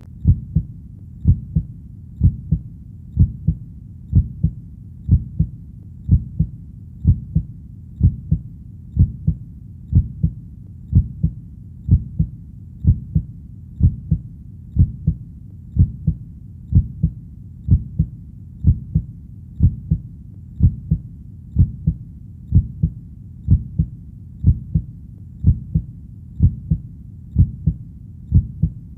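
Heartbeat beating slowly and steadily, about one beat a second. Each beat is a low double thud, the 'lub-dub' of the heart.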